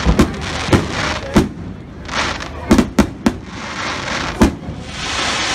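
Fireworks display: aerial shells bursting in about seven sharp bangs, several close together around three seconds in, over a steady hiss that swells near the end.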